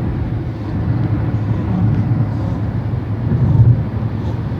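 A Shih-Tzu snoring over the steady low rumble of a moving car.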